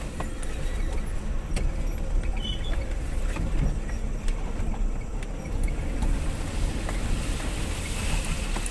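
A vehicle driving slowly over a rough dirt track, heard from inside the cab: a steady low engine and road rumble, with frequent short rattles and knocks from the bumpy ground.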